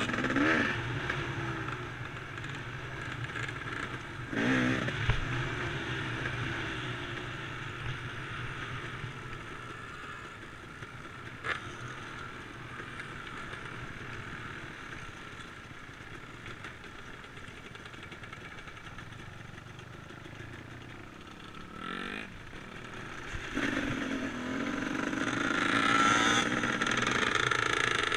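Dirt bike engine running along a stony track, with a few sharp clicks of stones. The revs rise and the engine gets louder over the last few seconds.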